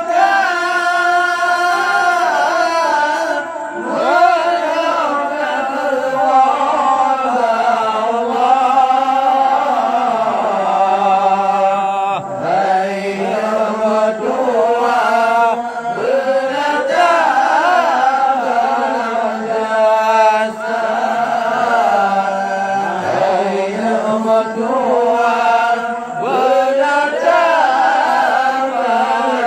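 A man singing an Acehnese qasidah, a devotional Islamic chant, into a handheld microphone, in long phrases whose pitch bends and wavers.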